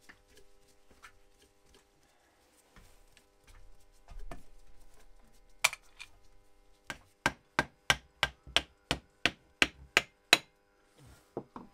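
Screwdriver handle knocking on a Yamaha Townmate's carburettor to loosen its float bowl: about eleven sharp taps at roughly three a second in the second half, after one single knock. Quieter clicks and scrapes of the screwdriver working the carb come first.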